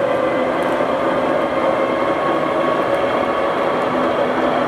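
Summit 31-inch by 100-inch gap-bed engine lathe running with its spindle and chuck turning: a steady mechanical whir with several held whining tones from the machine's drive.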